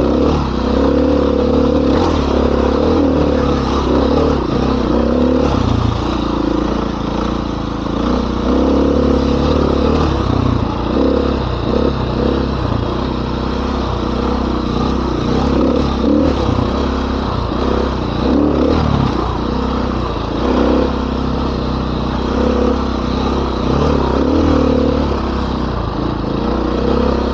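Dirt bike engine running while riding, the revs rising and falling as the throttle opens and closes.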